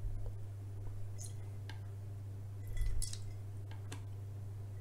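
Faint clinks of a metal tablespoon against a glass bowl as soy sauce is poured into the spoon and tipped into the bowl, over a steady low hum. There is a soft low bump about three seconds in.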